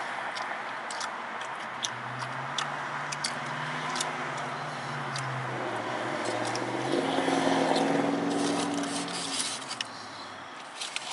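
Steady car-cabin noise with the crinkle and rustle of aluminium foil taco wrappers being handled, heard as scattered sharp clicks. A low droning hum comes in about two seconds in and swells louder from about seven to nine seconds in.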